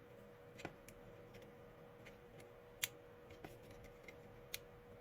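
A few sparse sharp clicks of a thin blade prying at the plastic clips of a 12 V power-tool lithium battery pack's case, the loudest about three seconds in, over a faint steady hum.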